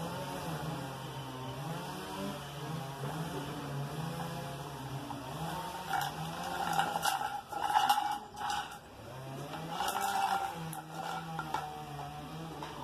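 A motor running, its low drone wavering up and down in pitch, with louder scraping and rattling bursts between about six and ten seconds in.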